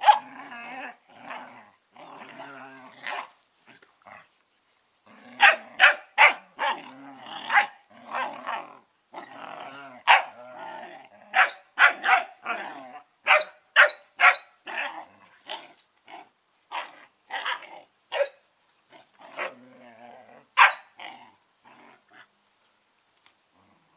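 Smooth collie puppies play-growling and barking as they wrestle: a quick run of short, sharp barks with rough growling between them, dying away about two seconds before the end.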